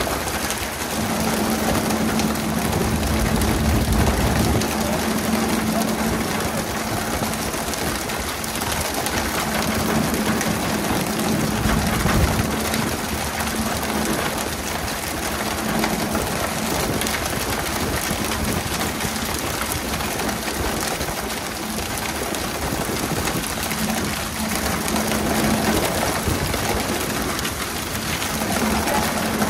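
Steady hiss and splash of water spray and churning sea along the hull of a pole-and-line tuna boat, with a boat engine humming steadily underneath.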